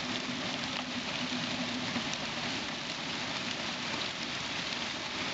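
Pea-sized hail pelting a wet concrete driveway: a steady, dense hiss of countless small impacts with scattered sharper ticks.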